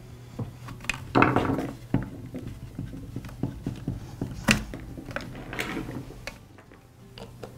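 Small handling clicks and taps of a screwdriver and fingers on a trimmer's plastic fuel tank as a new rubber fuel-line grommet is pressed into place. There is a brief rubbing scrape about a second in, and sharp clicks near two seconds and midway.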